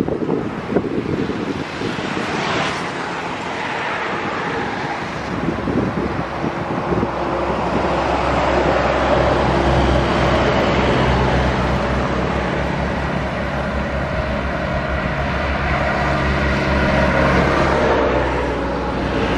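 Road traffic passing close by: trucks, cars and motorcycles, with a heavy engine's steady low drone joining about a third of the way in.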